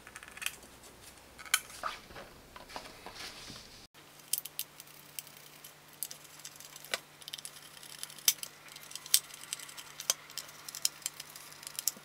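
Small screwdriver driving tiny screws into a plastic power bank case: faint, irregular clicks and ticks of the screwdriver tip and the case being handled.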